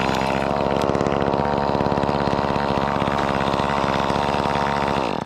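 Chainsaw engine idling steadily, its sound cutting off suddenly near the end.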